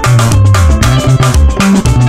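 Electric bass playing a seben bass line of moving low notes over a drum-kit backing track, the drums hitting evenly about four times a second.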